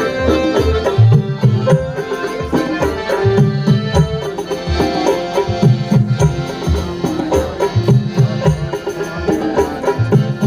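Loud music with heavy, regular drum beats and melodic instruments, played over a sound system.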